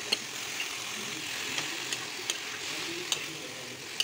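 Potatoes and spinach sizzling in a steel kadhai while a metal spoon stirs them: a steady frying hiss with about six sharp clinks of the spoon against the pan.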